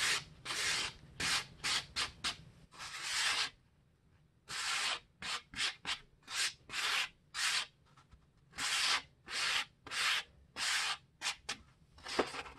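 Dry scraping and rubbing against paper to work loose vacuum dust and fibres stuck to it: quick strokes in runs, with a short pause about a third of the way in and another about two thirds of the way in.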